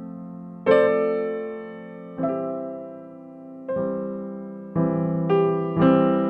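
Background piano music: chords struck one after another and left to fade, coming closer together in the second half.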